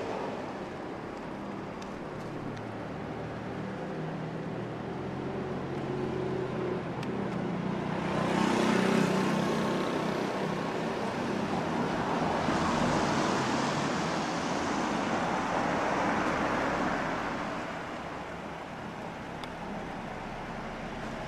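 Motor vehicles passing close on a wet street. A small motorbike's engine rises and passes about eight seconds in, then a car goes by with its tyres hissing on the wet asphalt, fading a few seconds before the end.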